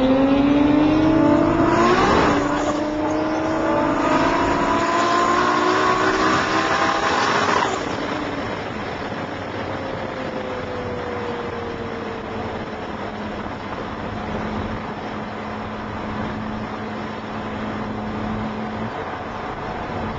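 MK3 Toyota Supra's swapped 2JZ engine at full throttle, heard from inside the cabin: the engine note rises, a gear change breaks it about two seconds in, and it climbs again until the throttle closes about eight seconds in. After that it cruises with a steady drone under road noise.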